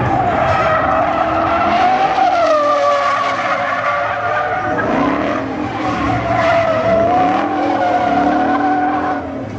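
Ford Mustang drifting, its rear tyres squealing in a long, wavering scream as they spin and smoke, with the engine revving up and down beneath it.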